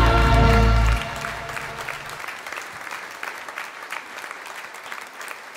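The song's final held chord stops about a second in, leaving an audience applauding, the clapping slowly fading.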